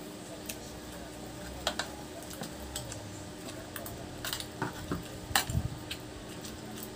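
Spoon and fork clicking and scraping against metal plates while eating, a scatter of short sharp clinks, the loudest about five seconds in.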